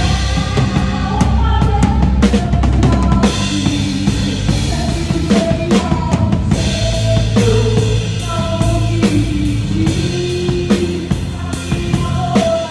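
Drum kit played with a live band: kick, snare and cymbals drive a steady beat over bass and a melody line.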